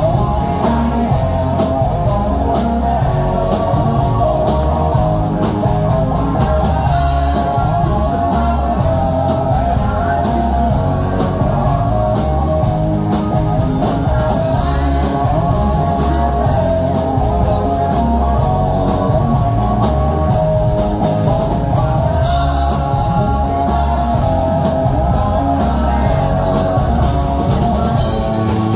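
Live rock band playing: electric guitars and a drum kit, with a man singing lead.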